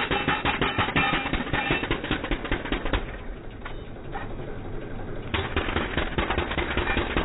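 Pneumatic jackhammer hammering rapidly as it breaks up concrete, with a metallic ringing over the strikes. It stops for about two seconds near the middle, then starts hammering again.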